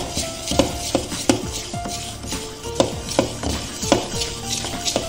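A metal spoon stirring thick batter in a stainless steel bowl, clinking and scraping against the bowl about three times a second. Light background music plays underneath.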